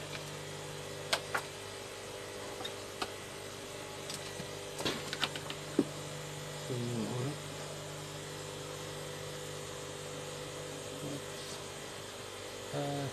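Steady electrical hum with a few light, sharp clicks and taps from work on the inverter's circuit board, most of them in the first half.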